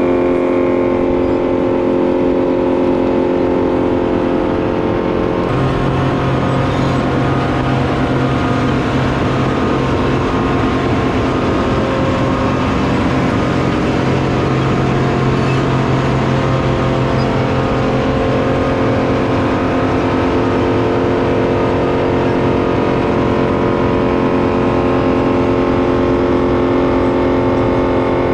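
Heavy land-clearing machinery, a tracked wood chipper with an excavator feeding it, running steadily at high engine speed. The engine note shifts about five seconds in.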